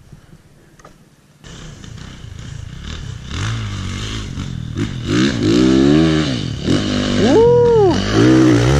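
Dirt bike engine approaching and getting louder, its revs rising and falling again and again as the rider works the throttle through a berm, with one sharp high rev about three-quarters of the way through.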